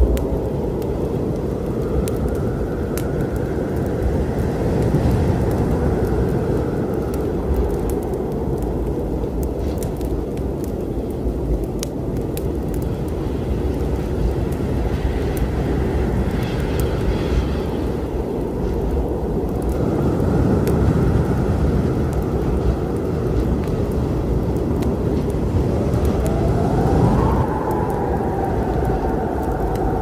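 Storm sounds: a steady low rumble with a howl of wind that rises and falls a few times, clearest near the end. Sharp crackles from a wood fire sound throughout.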